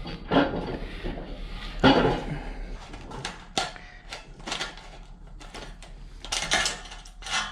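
Chain-type exhaust tubing cutter being worked around exhaust tubing, its hardened steel rollers scoring into the pipe: a series of short metallic scrapes and clicks, irregularly spaced, about one every half second to second.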